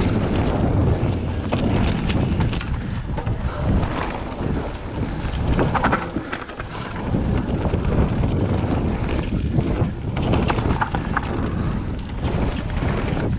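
Wind buffeting the microphone as a Commencal mountain bike rolls fast down a loose gravel and dirt trail, with the tyres crunching over stones and the bike rattling over the bumps.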